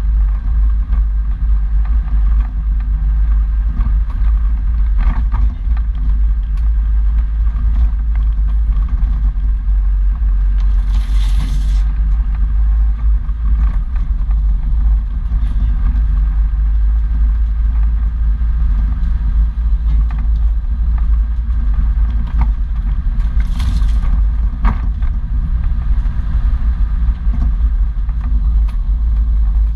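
A 4x4's engine running steadily as it drives slowly off-road, heard from a bonnet-mounted camera as a heavy, continuous low rumble. Two brief hissy swishes come about a third and about four-fifths of the way through.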